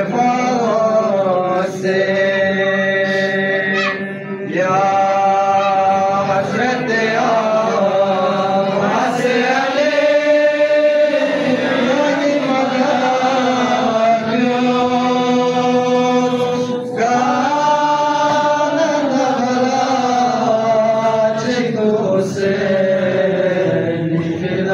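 A male voice chanting a Balti qasida in praise of Imam Ali, unaccompanied, into a microphone: long held notes with slow rises and falls in pitch.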